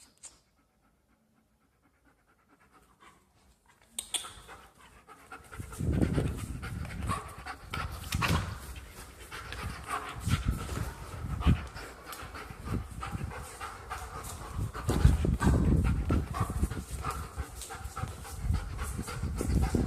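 German shepherd dog panting hard and close, starting about four seconds in, mixed with loud irregular bumps and rustling.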